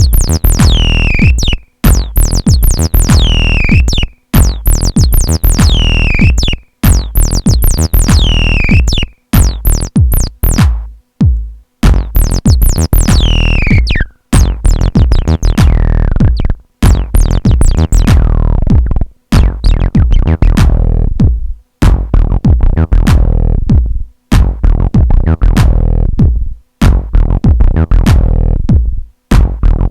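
Acid techno played on hardware: a drum machine beat with synthesizers and a TD-3 acid bassline. The whole mix cuts out briefly about every two and a half seconds, and in the first half a high synth sound sweeps downward every couple of seconds.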